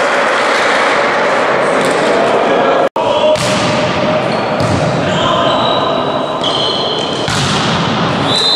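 Volleyball match sound in a reverberant sports hall: players' shouts and ball hits echoing. The sound cuts out for a split second about three seconds in, and a brief high whistle sounds near the end.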